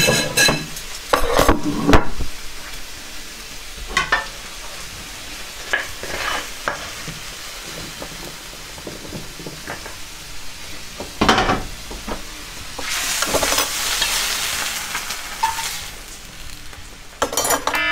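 A metal utensil scraping and knocking against a frying pan as food is tipped onto a plate, over a steady sizzle of frying, with a louder sizzling hiss for a couple of seconds past the middle. Near the end a smoke alarm starts beeping.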